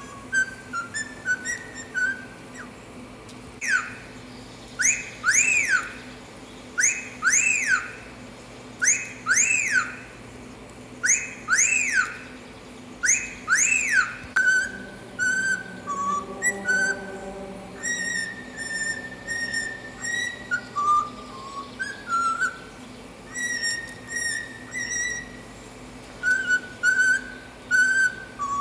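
Cockatiel whistling: a run of paired, quick rising-then-falling wolf-whistle glides ("fiu-fiu") through the first half, then a tune of short held notes that step up and down in pitch.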